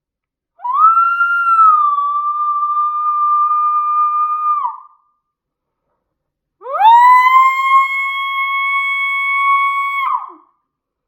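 Yote Punchin' coyote howler call blown in two long coyote-style howls. The first glides up slightly, holds for about four seconds and drops off at the end; after a pause, the second swoops sharply up from low to a steady held note for about three and a half seconds before breaking off.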